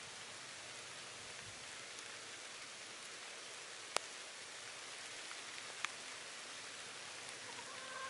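Steady, even background hiss, broken by two sharp clicks about four and six seconds in.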